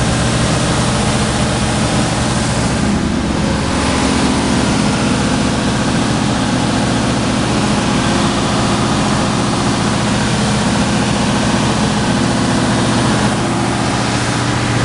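Capital SDM-37A wide belt sander running, its three-phase main drive motor spinning the abrasive belt, with the variable-speed infeed belt also on. A loud, steady machine hum with a broad hiss over it, the hiss easing briefly about three seconds in and again near the end.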